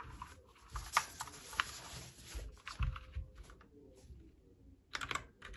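Keys of a GamePro MK85R mechanical keyboard with red switches being pressed: scattered single clicks, then a quick run of several presses near the end.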